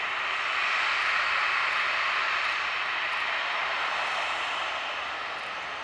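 Boeing 737-800's CFM56-7B turbofan engines at taxi power as the jet rolls slowly past close by: a steady jet rush, loudest about a second in and easing off toward the end.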